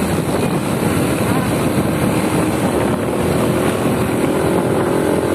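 Steady noise of a motorcycle under way in city traffic, its engine and road noise running without a break.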